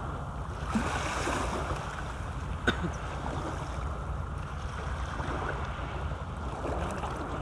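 Steady wind noise on the microphone over small waves lapping at the foot of a concrete seawall, with a single sharp click about two and a half seconds in.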